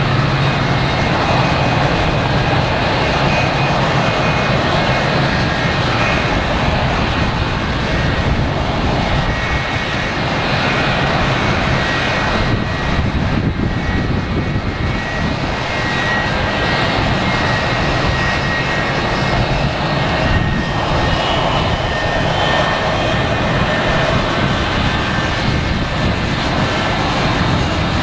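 Jet engines of airliners at taxi power, a McDonnell Douglas MD-88 taxiing past close by: a steady rushing noise laced with high whining tones.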